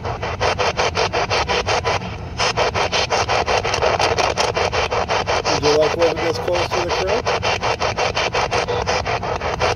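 SBox ghost scanner (spirit box) sweeping up the FM band: radio static chopped into a rapid, even pulsing, several pulses a second. A brief snatch of broadcast tone cuts through about six seconds in.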